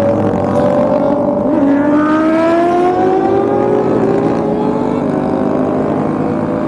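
Motorcycle engines pulling hard at highway speed: two engine notes rising steadily together, the second coming in about a second and a half in.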